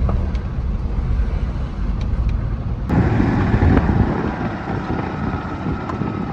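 GMC Yukon driving slowly, heard inside the cabin as a steady low engine and road rumble. About three seconds in, it cuts to a louder, steady rushing noise of a vehicle moving over a concrete road, heard in the open air.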